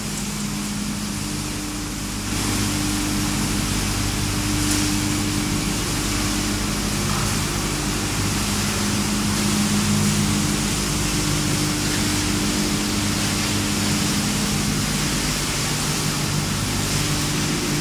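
Running machinery of a wood pellet production line: a steady hum of several low tones over an even rushing hiss, getting louder about two seconds in and then holding steady.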